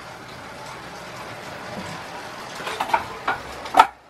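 A steady hiss with a handful of sharp clicks and knocks from handling things at a bike's handlebar; the clicks come in the last second or so, and the last one is the loudest.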